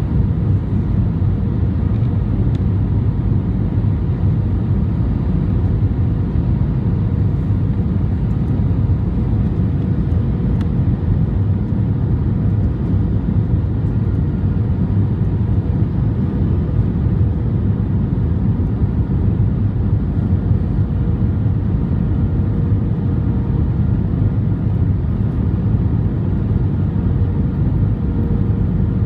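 Cabin noise of an Airbus A320 in flight, heard from a window seat over the wing: a steady low rumble of the jet engines and rushing air, with a faint steady hum above it.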